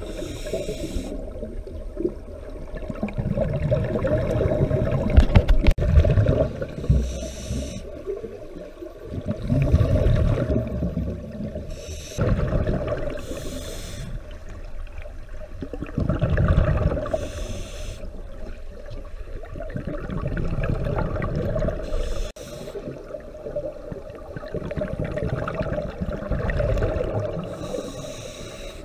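Scuba diver breathing through a regulator underwater: a hissing inhale every four to five seconds, followed by a rumbling, gurgling rush of exhaled bubbles.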